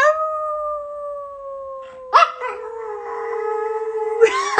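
Pomeranian howling: one long note that sags slowly in pitch. About two seconds in, a second howling voice joins and overlaps it. Near the end it breaks into a quick run of short warbling yips.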